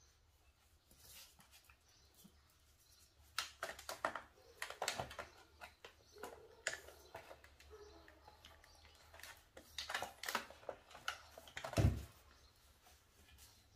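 French Bulldog and Chihuahua puppies' claws clicking and scratching on a wooden floor and plastic potty tray as they play, in irregular clusters, with a heavier thump near the end.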